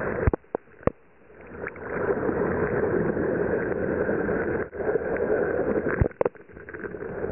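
Water rushing and splashing around a sea kayak, with two sharp knocks in the first second and two more around six seconds in.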